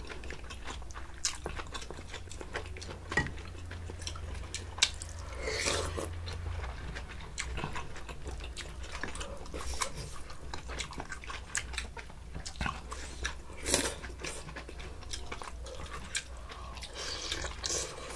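People eating spicy beef soup with rice and side dishes up close: chewing and biting, with scattered sharp clicks of spoons and chopsticks against the bowls.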